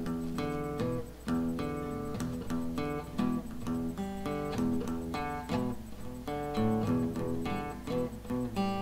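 Solo acoustic guitar playing a song's introduction: a steady run of plucked and strummed chords, each note ringing briefly before the next.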